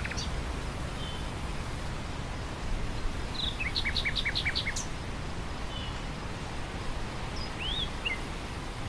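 Wind blowing through grassland, a steady rushing with a low rumble. A nightingale sings sparse phrases over it: a quick run of about six repeated notes around the middle and a single rising-then-falling whistle near the end.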